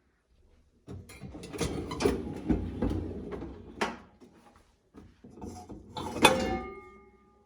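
Dishes and a dishwasher rack being handled: irregular clattering, sliding and clicks, then a sharp clink just after six seconds that rings briefly.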